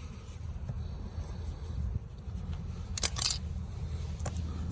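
A few sharp clicks from a folding pocket knife being handled to trim the excess tire plug: two close together about three seconds in and a lighter one near the end, over a low steady rumble.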